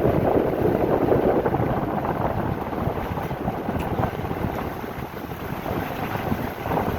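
Strong wind gusting and buffeting the microphone at sea, with rough water beneath it; the gusts ease slightly about halfway through.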